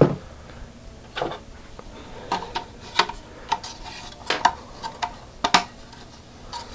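Irregular hard clicks and clinks as a car radio and its mounting bracket pieces are handled and fitted together, the loudest one right at the start.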